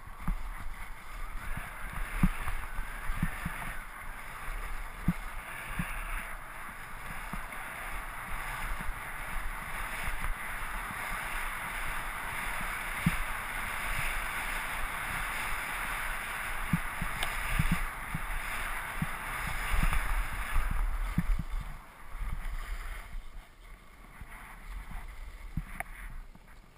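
Skis hissing and scraping over packed groomed snow at speed, with occasional low thumps; the sound dies down over the last few seconds.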